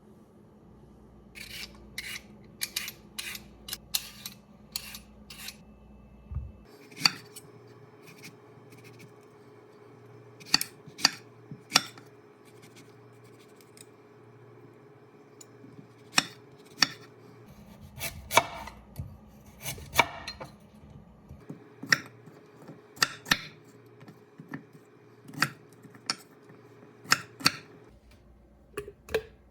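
Kitchen preparation sounds: an irregular series of sharp clicks, taps and clatters of utensils and dishes being handled, with a few rustles, over a faint steady hum.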